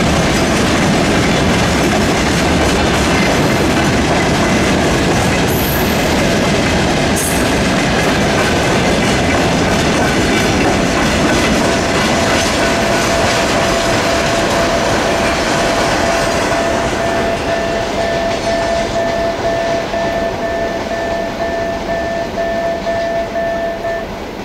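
Freight train of tank wagons rolling past, a steady rumble and clatter of steel wheels on the rails that fades over the last few seconds. A steady high tone joins about halfway through and stops just before the end.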